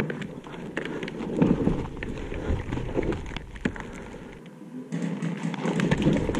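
Handling and rustling noise on a body-worn action camera as a ghillie-suited player moves over rubble, with scattered sharp clicks through it. Near the end the camera jolts and tumbles as it falls off.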